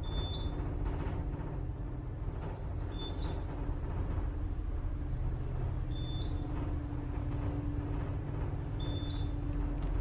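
Elevator car travelling, a steady low rumble with a steady hum over it. A short high beep sounds about every three seconds.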